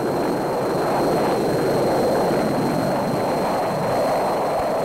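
Jet aircraft in flight: a steady, dense rushing noise of jet engines passing overhead, swelling slightly a couple of times.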